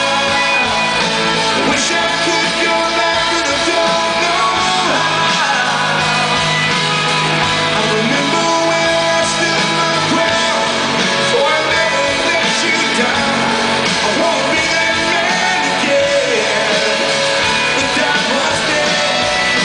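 Live Christian rock band playing in an arena, a man singing lead over electric and acoustic guitars, keyboards and drums.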